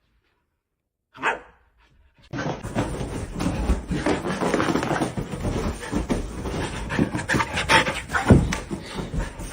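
A dog barking and panting, starting abruptly about two seconds in after a near-silent opening.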